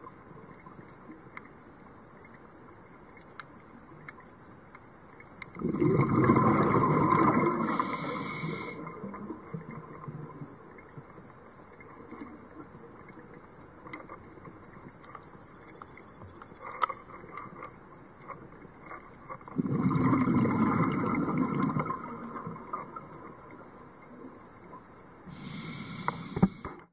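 Scuba diver's regulator breathing underwater: two long rushes of exhaled bubbles about fourteen seconds apart, a shorter, quieter rush near the end, and a faint hiss with small clicks between breaths.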